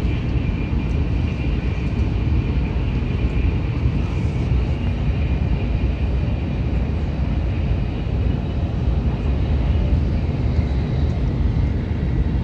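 Steady running noise inside a Shinkansen bullet train passenger car at high speed: a deep, even rumble and rush with a faint high whine above it.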